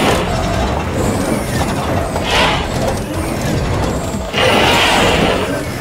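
Cartoon sound effects of heavy machinery working under a low steady rumble, with two loud noisy rushes, a short one about two and a half seconds in and a longer one a little after four seconds.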